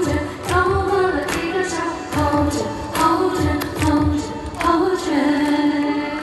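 Music: a sung melody over a steady drum beat.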